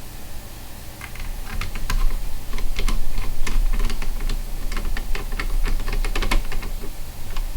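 An irregular run of sharp clicks and taps from a small screwdriver and tiny screws handled on a computer motherboard, as an M.2 SSD is screwed down. The clicks begin about a second in and thin out near the end.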